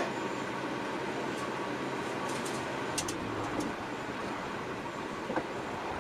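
Steady room noise with light metal clicks and taps from hand work inside a grandfather clock case as the chime parts are fitted; one sharper click right at the start, then a few fainter ones scattered through.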